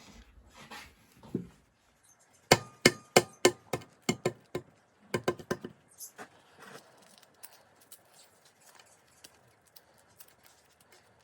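Hard-boiled egg knocked repeatedly against a hard surface to crack its shell: about a dozen sharp taps over some three seconds, then fainter scattered ticks.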